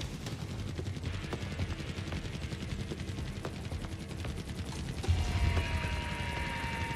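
Sci-fi soundtrack: rapid mechanical clicking and rattling under music. About five seconds in come low thuds, a falling tone and a steady higher tone.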